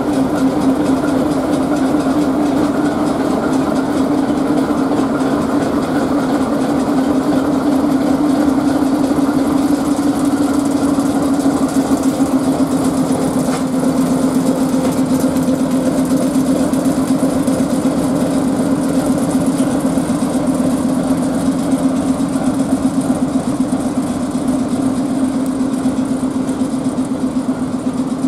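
ChME3 shunting diesel locomotive's six-cylinder engine running as it moves the passenger coaches along the platform: a loud, steady, throbbing drone.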